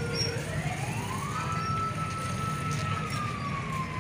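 A siren wailing: its pitch rises over about a second, holds steady, then slowly falls away, over a steady low background rumble.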